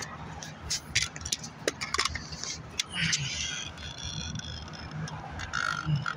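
Caulking gun with a cartridge of black roofing sealant being worked: a string of irregular sharp clicks from the trigger and cartridge as sealant is pressed out around a roof vent pipe.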